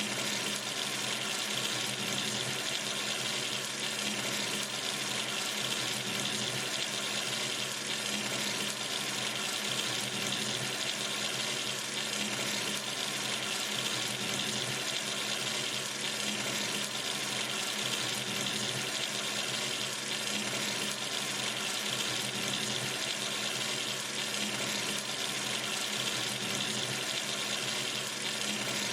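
Kitchen or bathroom sink tap running steadily, a constant stream of water splashing into the basin.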